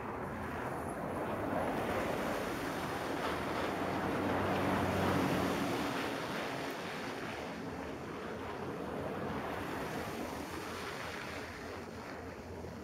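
Traffic passing on a snow-covered, slushy street: a swelling and fading hiss of tyres through slush with a low engine hum, loudest about five seconds in.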